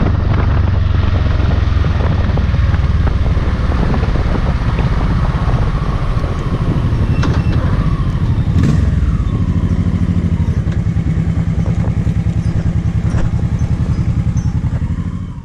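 2006 Honda Shadow Sabre's 1100 cc V-twin running as the motorcycle rides along. For the last few seconds it drops to a slow, evenly pulsing rumble as the bike rolls in at low speed.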